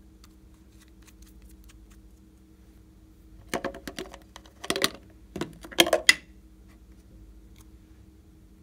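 Small plastic and glass bottles and jars being handled and set down: a cluster of sharp clicks and taps about halfway through, the loudest a little past the middle, with faint ticks before it.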